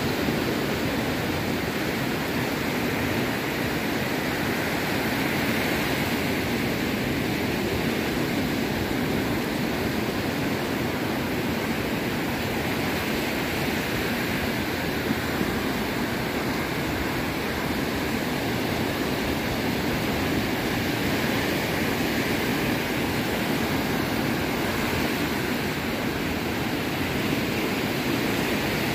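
Atlantic surf breaking on a sandy beach: a steady rushing wash of waves, with no single crash standing out.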